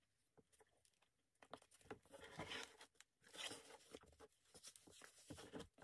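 Faint paper rustling and small taps as a thick old hardcover book is closed and pressed shut by hand, its pages and cloth cover brushing together. The rustling starts about a second and a half in and comes in short irregular bits.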